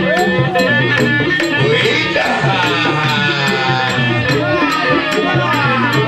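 Batak Toba traditional dance music for tortor dancing: a gliding melody over repeating low notes, with a regular ticking percussion beat.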